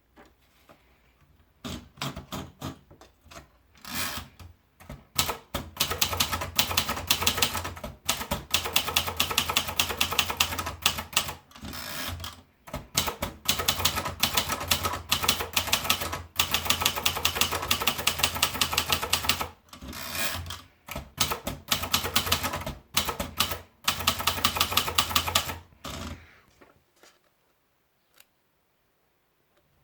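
Sumitronics 30 typewriter being typed on in quick, dense bursts of clattering keystrokes, with short pauses between runs. A steady low hum sits under the busiest stretch of typing. The typing stops about four seconds before the end.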